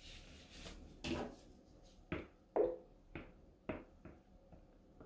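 Green silicone spatula scraping the last of the cold process soap batter out of a mixing bowl into the loaf mold: a soft hiss of batter at first, then about six short scraping knocks roughly half a second apart.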